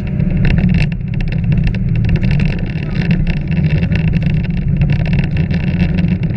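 Car engine running hard, heard from inside the cabin while driving fast on a gravel road, with many sharp clicks of gravel stones striking the underside.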